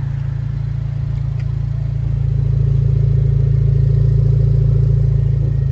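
Exhaust of a Suzuki Swift Sport ZC33S's 1.4-litre turbo four fitted with a Fujitsubo aftermarket muffler, idling with a steady, very deep drone. The drone grows louder about two seconds in, with the microphone right at the tailpipe.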